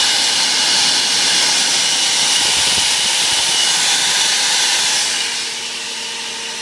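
Dyson DC16 handheld vacuum motor and fan running at high speed off a bench power supply at 10 volts, a loud steady whine with rushing air, drawing almost 8 amps. About five seconds in the sound drops lower, and at the very end it begins to wind down.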